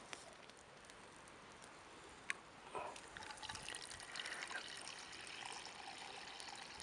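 Water being poured, faint and uneven, starting about three seconds in, with a single light click shortly before.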